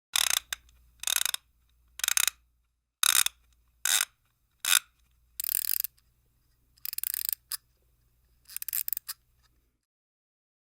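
A series of about ten short, sharp mechanical clicks and scrapes played one after another, each a fraction of a second long, ending in a quick rattle of several clicks.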